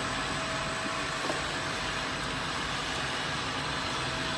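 Steady machine noise of a running bottle filling and labeling line, with conveyors and an automatic labeling machine, and a thin steady whine through it. A faint click about a second in.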